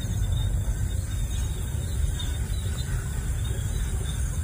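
Steady low rumble of wind buffeting the microphone outdoors, with a faint high drone of crickets behind it.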